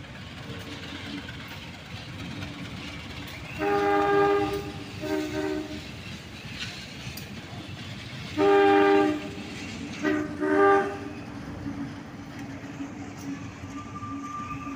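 KAI CC 201 diesel-electric locomotive rolling slowly past with its engine running steadily. It sounds its multi-tone horn in two groups: a long blast and a short one about four seconds in, then a long blast and two quick short ones about eight to eleven seconds in.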